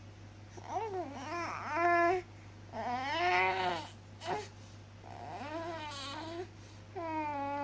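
A series of drawn-out, strained vocal calls, each about a second long and wavering up and down in pitch, over a steady low hum.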